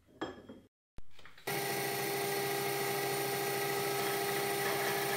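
A few light metallic clicks and a sharp knock as the lathe chuck is tightened with its key. From about a second and a half in, the metal lathe runs steadily with a constant whine while a centre drill in the tailstock chuck spots the end of a rusty steel bar.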